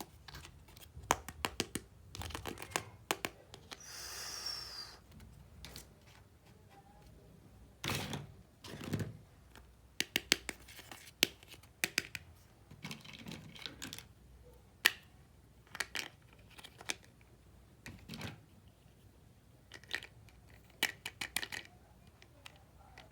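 Small hard plastic toy kitchen pieces clicking and tapping as they are handled and set down, in irregular sharp clicks, with a brief rustle about four seconds in and a couple of duller knocks near the middle.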